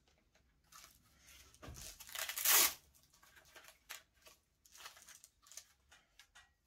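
Hands handling an off-road electric skateboard: a loud, rough scraping rustle about two seconds in, with a dull knock at its start, then scattered light clicks and rubs as the board is moved and turned over.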